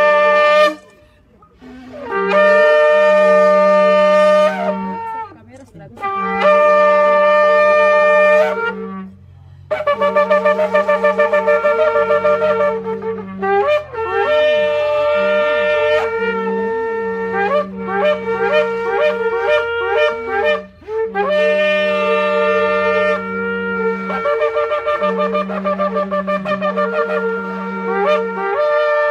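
Several shofars (long curled ram's-horn trumpets) blown together in long held blasts, with a fast run of short pulsing blasts about ten seconds in, then more long, wavering blasts that step between notes.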